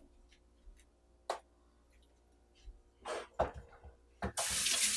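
A few light knocks, then a kitchen tap turned on about four seconds in, water running steadily.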